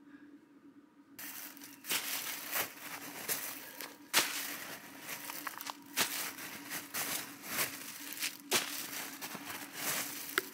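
Close, irregular crunching and crinkly rustling that starts about a second in, full of sharp clicks and knocks, over a faint steady hum.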